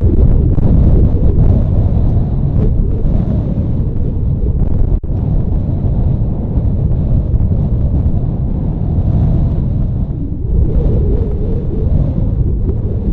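Wind buffeting the microphone: a loud, steady low rumble, with a brief dropout about five seconds in.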